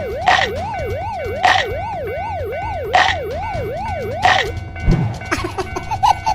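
Cartoon siren wailing up and down rapidly, about two and a half times a second, under a springy 'boing' sound effect that repeats about every second and a half. The siren stops near the end, followed by a low thump.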